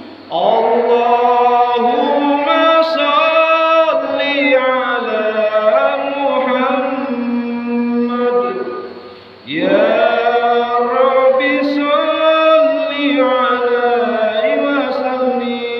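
A man singing sholawat, an Islamic devotional song, unaccompanied. He sings two long, ornamented phrases with many turns of pitch, breaking briefly about nine seconds in. A steady low hum runs underneath.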